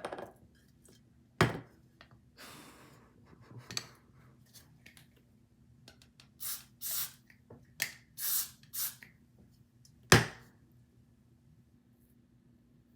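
Scattered handling noises from work on a wig: a sharp knock about 1.5 s in and a louder one about 10 s in, with a brief rustle and a run of short, hissy strokes in between.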